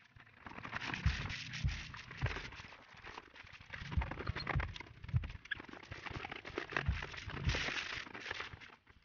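Plastic scooter fairing panels being washed by hand in a basin of soapy water: a sponge scrubbing and water sloshing, with irregular dull knocks as the panels bump against the basin.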